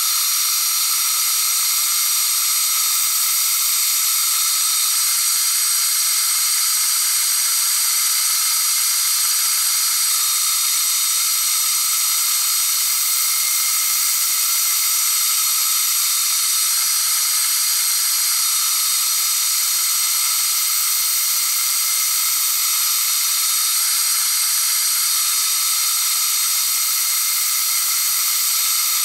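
Diamond cup wheel spinning in a Deckel FP1 milling machine spindle, grinding the cutting corners of an end mill: a steady, even hiss with several high whining tones over it.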